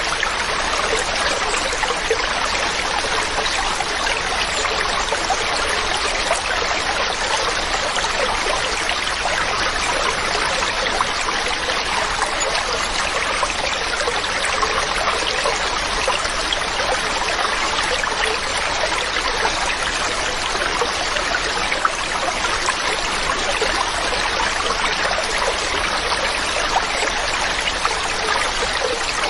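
Mountain stream running steadily over rocks: a continuous, even rush of water.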